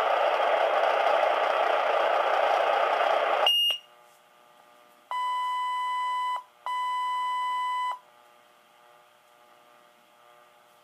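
Motorola Minitor V fire pager: open-channel radio static hissing from its small speaker, cut off by a short high chirp about three and a half seconds in. Then two long steady beeps of about a second and a half each, one right after the other: the pager's alert tone for a new call.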